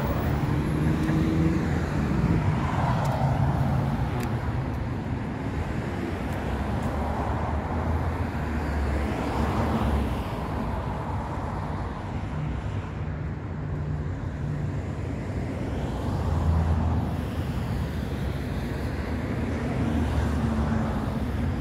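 Road traffic: cars driving past one after another, each swelling and fading over a steady rumble of engines and tyres.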